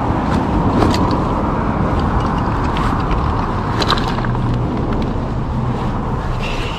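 Steady rushing noise of a fast-flowing river, with a few light clicks from handling the fish and tackle.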